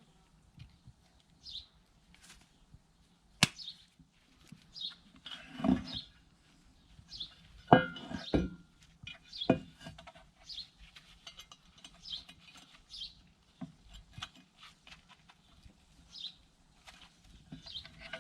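Scattered knocks and clinks of metal hand tools and parts being handled, with a sharp knock about three and a half seconds in and the heaviest knocks around eight seconds in. Short high chirps come in between.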